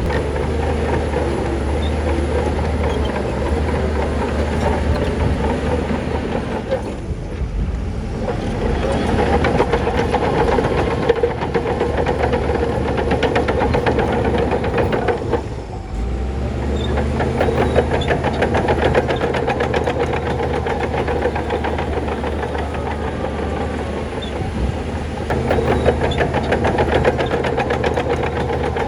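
Heavy diesel earthmoving machinery at work: a deep engine running steadily with a dense metallic rattle over it, easing off briefly twice.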